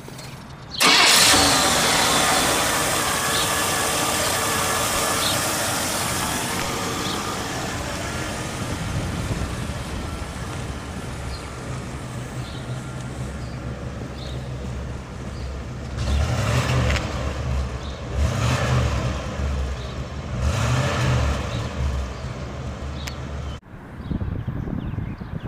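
The 1976 Cadillac Fleetwood's 500 cubic inch V8 starts about a second in, runs loud at first and settles gradually into a steady idle. Later it is revved three times in a row. Near the end a short break is followed by the car's engine running more quietly as it drives.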